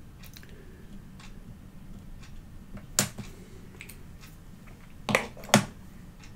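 Small objects handled on a work desk: a sharp click about three seconds in, then two louder clicks about half a second apart near the end, with a few faint ticks, over a faint steady low hum.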